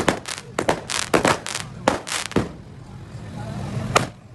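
A rapid, irregular string of sharp cracks over a low rumble, thinning out after about two and a half seconds to one more crack near the end.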